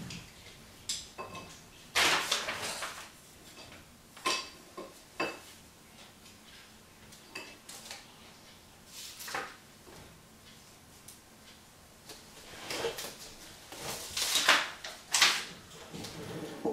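Oil painting in progress: irregular scratchy brush strokes on canvas and light clinks of painting tools, coming in scattered bunches with the busiest spell near the end.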